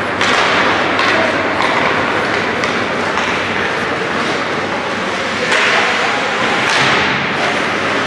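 Hockey game play in a rink: a steady wash of crowd and skating noise, broken by several sharp thuds and cracks of puck and sticks.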